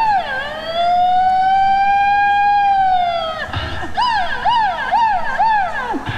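Electronic siren sounding. It gives quick rising-and-falling whoops, then a long held wail of about three seconds, then more quick whoops, and near the end the pitch drops away.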